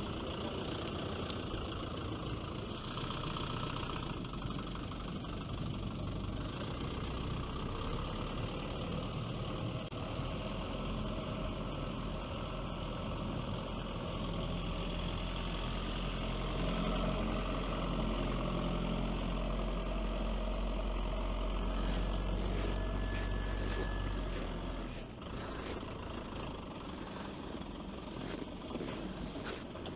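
2.4-litre 4D24T turbodiesel of a Veter all-terrain vehicle running steadily under load while driving, with a deep low hum. The engine note rises a little past the middle, and the deep hum drops away near the end as the load eases.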